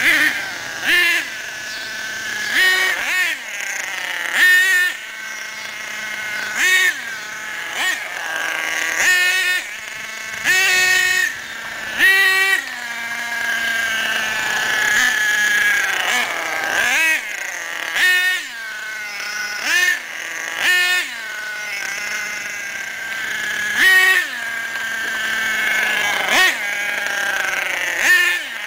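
HPI Savage X's F4.6 nitro engine, driven in repeated short bursts of throttle, each surge rising and falling in pitch, with a steadier buzz between them, during break-in of the new engine.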